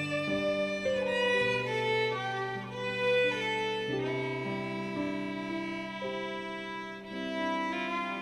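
Solo violin playing a melody of held, bowed notes over a sustained low accompaniment from the orchestra.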